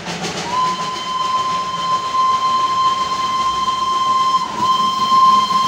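Darjeeling Himalayan Railway steam locomotive's whistle sounding one long, steady high note from about half a second in. It breaks briefly near the end, then sounds on over the hiss of steam.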